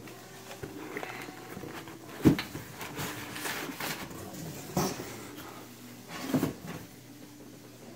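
Cardboard boxes being lifted out of a shipping carton and set down, with crumpled packing paper rustling: three dull knocks, the loudest about two seconds in.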